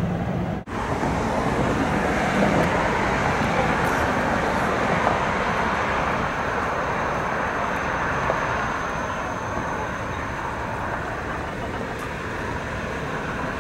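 Steady highway traffic noise, a continuous rush of vehicles on the interstate, cutting out for an instant just under a second in.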